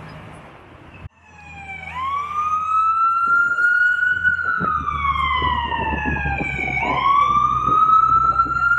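Emergency vehicle siren wailing, its pitch climbing and falling in slow sweeps of about five seconds, over a low traffic rumble. It starts about a second in, after steady road noise that cuts off abruptly.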